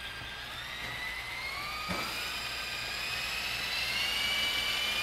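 Electric motors and coaxial twin rotors of an Art-Tech 400-class RC helicopter spinning up for takeoff. The whine rises slowly in pitch and gets louder, with a light tap about two seconds in.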